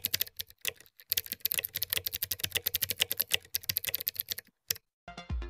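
Rapid keyboard typing clicks, a typing sound effect laid under text being typed out on screen, roughly ten keystrokes a second; it stops shortly before the end.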